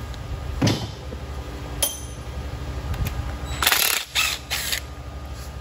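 Short bursts of a cordless DeWalt power tool spinning out bolts from the oil pump on the front of a 5.3 L LS engine block, starting about three and a half seconds in, after a couple of tool knocks.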